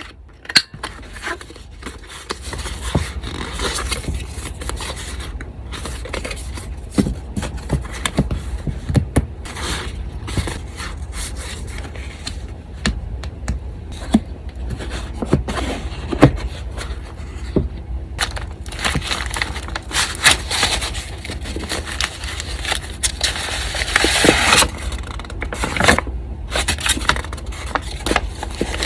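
Paper being handled on a desk: rustling, sliding and scraping with small taps, growing into a louder stretch of rubbing and crinkling about two-thirds of the way in. An electric fan hums low and steady underneath.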